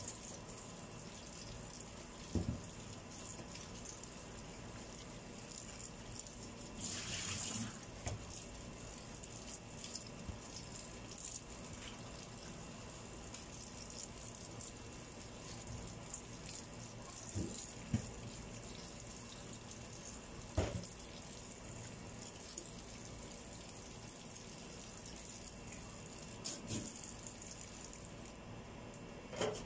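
Tap water running into a metal pot of cabbage in a stainless steel sink as the cabbage is rinsed by hand, with a louder splashing stretch about seven seconds in and a few short knocks.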